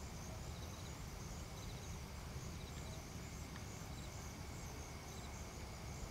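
Faint background ambience: a steady low hum with small, high-pitched chirps that repeat in short groups throughout.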